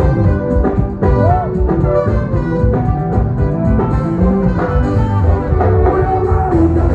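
Music with several instruments over a steady beat.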